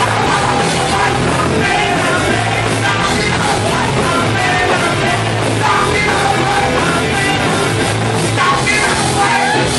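Punk rock band playing live and loud, with shouted singing over the band.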